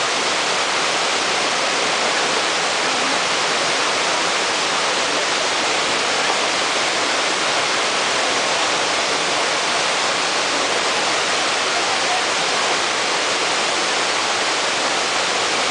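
A small waterfall cascading over rocks: a steady, even rush of falling water.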